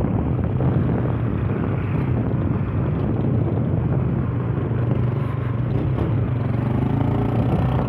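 Yamaha Fazer 150 single-cylinder motorcycle engine running steadily under way, with wind buffeting the microphone.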